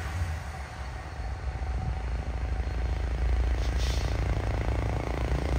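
Heavy diesel truck engine labouring on a steep uphill climb, a low rumble that grows louder about halfway through. A brief hiss of air comes a little before the end.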